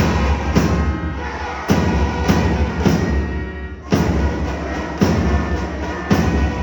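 Music with heavy drum hits recurring about every half second to a second over sustained instrumental tones.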